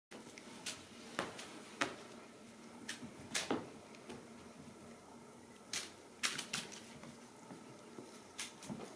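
Scattered light clicks and rustles, about a dozen at uneven spacing, as a kitten leaps at, bats and claws a feather wand toy.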